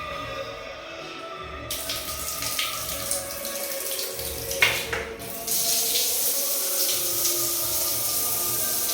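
Water running from a tap, starting about two seconds in and growing stronger after about five seconds, with one sharp knock near the middle.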